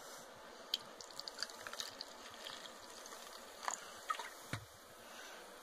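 Coca-Cola poured from a bottle into a paper cup, faint, with the fizz of the carbonation crackling as scattered small ticks and a few louder clicks near the end.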